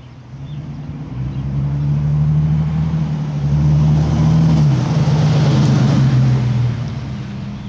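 Chevrolet Vortec 4.3 V6 exhaust through a glasspack muffler, with a deep steady drone. It swells about half a second in, runs loud for several seconds with a slight drop in pitch past the middle, and eases off near the end.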